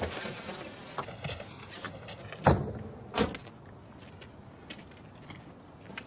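Opel Astra car doors: handling clicks and rustle, then two doors slamming shut about two and a half and three seconds in, the first the louder.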